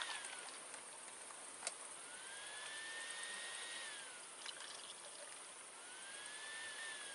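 A drink being poured from a can into a glass, faint. Behind it, a faint whistle-like tone rises, holds and falls again every few seconds.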